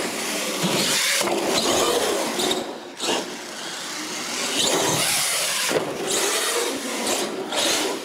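Radio-controlled monster truck driving hard on a concrete floor: motor whine and tyre scrub that swell and drop as the throttle is worked, with brief lulls.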